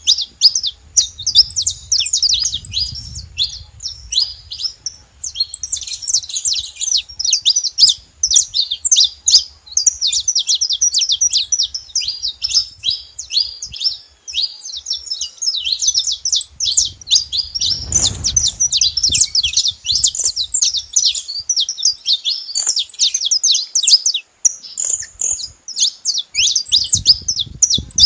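Saffron finch (canário-da-terra) singing in a continuous, rapid run of high chirps and short trilled notes.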